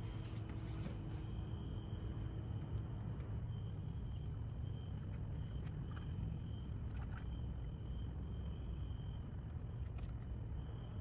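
Motor oil being poured from a plastic jug through a funnel into the engine's oil filler, faint under a steady high-pitched trill and a low hum.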